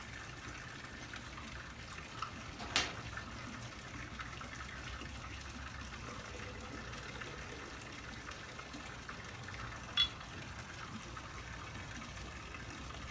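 A woman snoring, a gurgling snore that sounds like water bubbling in a bong. Two short clicks, about three and ten seconds in.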